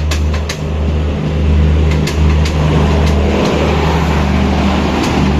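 Horn of a WAP-7 electric locomotive sounding in long blasts with short breaks between them, over the running noise of the train and a few sharp clicks of wheels passing over rail joints.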